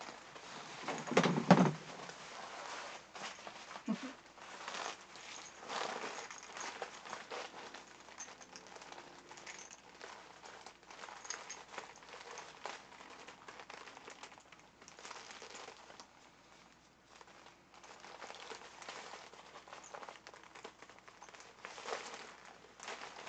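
PVC garment and sauna suit crinkling and rustling as the wearer moves, in irregular bursts, loudest about a second and a half in.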